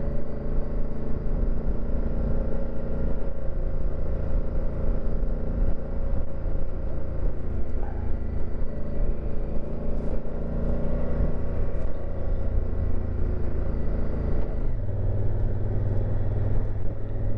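Honda Africa Twin's parallel-twin engine running steadily under way on a dirt trail. Near the end its note drops to a lower, heavier tone.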